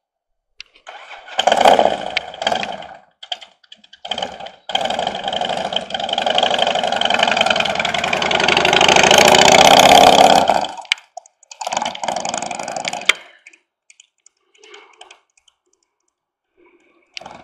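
2006 Harley-Davidson motorcycle's V-twin engine running as the bike is ridden past, in uneven stretches that swell to their loudest about ten seconds in, then cut back and fade as it rides away.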